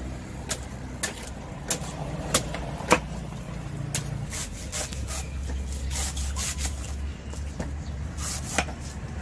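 Cleaver strokes shaving the husk off a young green coconut on a wooden chopping block: sharp knocks roughly every half second for the first few seconds, then softer, longer strokes, over a steady low engine rumble.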